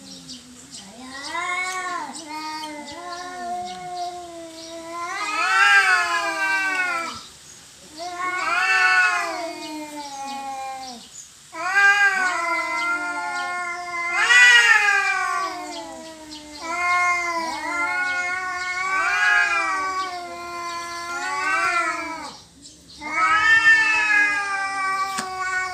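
Cats yowling in a territorial standoff before a fight: long, wavering yowls that rise and fall in pitch and swell and fade, following one another with only brief gaps.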